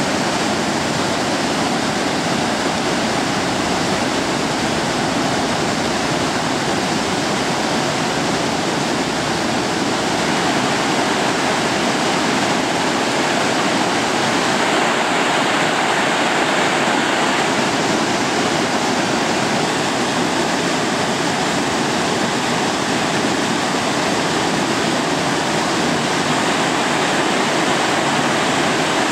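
Steady rush of fast-flowing river water, an even unbroken noise.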